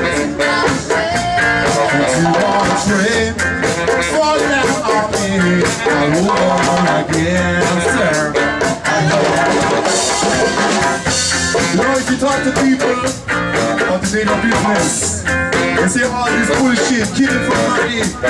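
A live band playing amplified music, with hollow-body electric guitar, electric bass, saxophone, hand drums and a drum kit.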